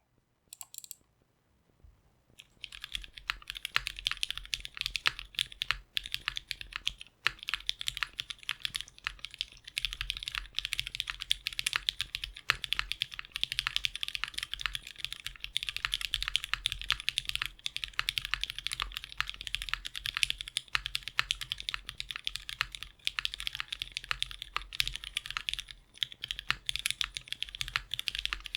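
Continuous fast typing on a 60% mechanical keyboard fitted with lubed and filmed retooled Cherry MX Black linear switches with milky tops, GMK ABS keycaps on an aluminum plate: a dense stream of key clicks that starts about two and a half seconds in, after a couple of single keystrokes, with brief pauses twice.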